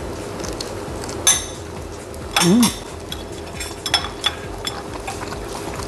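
Eating boiled shell-on shrimp by hand: biting and chewing, with a few sharp clicks and clinks of dishes. The loudest is about two and a half seconds in.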